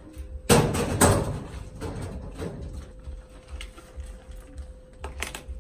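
A metal office cabinet being shut: two loud knocks about half a second apart, each ringing briefly. Softer clicks and handling sounds follow, with a quick pair of clicks near the end.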